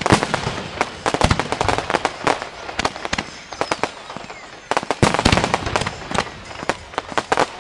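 Fireworks display: a rapid, irregular run of bangs and pops from comets and star shells going off, thickening into a denser, louder cluster about five seconds in.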